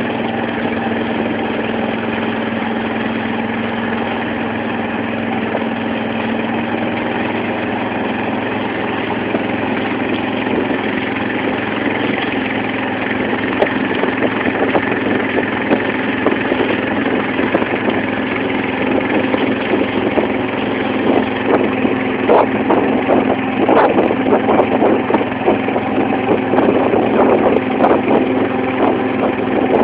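Engine of a wooden banka motorboat running steadily under way, with water rushing and splashing against the hull. The splashing grows louder and choppier over the second half.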